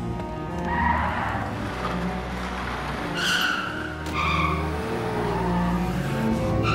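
Car tyres squealing in several short skids, about a second in, twice around three to four seconds in, and again at the end, over the low drone of a car engine.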